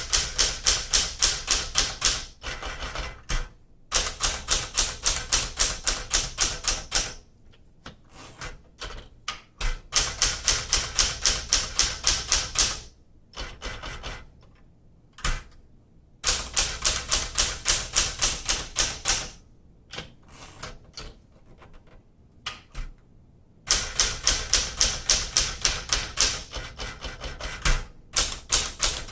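Keys of a 1968 Smith Corona Super Sterling manual typewriter being struck one after another in fast, even runs of about five or six strikes a second, working through all the keys to test them. There are five runs with pauses between them, and lighter clicks and knocks of the mechanism in the pauses.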